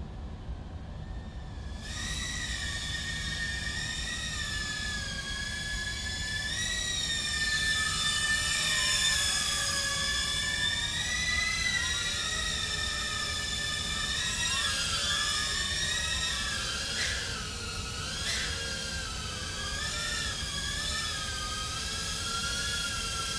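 Small 2-inch FPV quadcopter's brushless motors and propellers whining, the pitch rising and falling continuously with the throttle. The whine starts suddenly about two seconds in, over a low steady rumble, and two short sharp ticks come near the end.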